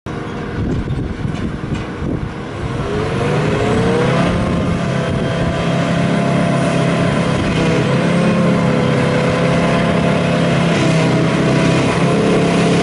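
John Deere self-propelled forage harvester working grass, its engine and chopping and blowing noise running loud. The engine pitch rises between about two and four seconds in, then holds steady under load.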